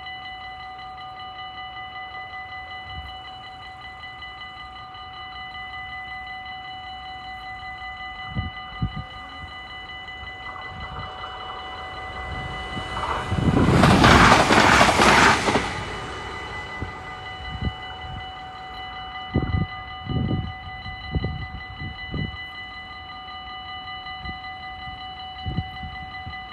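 Dutch level-crossing warning bell ringing steadily and rapidly throughout, while an Arriva passenger train rushes past, loudest from about 13 to 16 seconds in. Several short low thumps follow in the second half.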